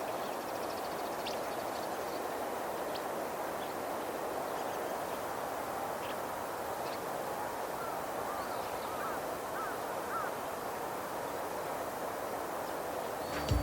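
Open-field ambience: a steady background rush with scattered faint short bird chirps, and a quick run of several short arching bird calls about eight to ten seconds in.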